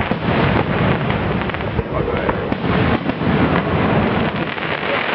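Fireworks display: shells bursting one over another with continuous crackling and booming, a dense barrage with no gap.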